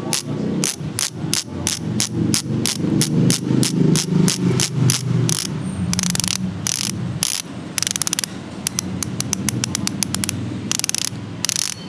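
Sagmit Secret V12 ratchet-type bicycle hub freewheeling, its ratchet clicking steadily at about three clicks a second. The clicks come faster for a couple of seconds past the middle, then slow again. The hub is a little loud for a ratchet hub, which is taken to mean larger ratchet parts inside.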